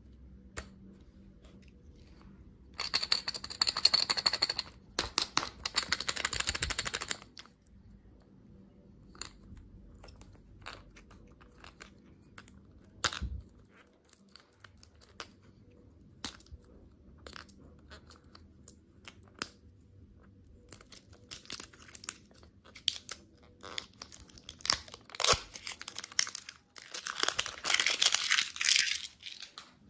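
Candy packaging being crinkled and torn open, in two rustling bursts a few seconds in and another near the end, with scattered light clicks and taps between.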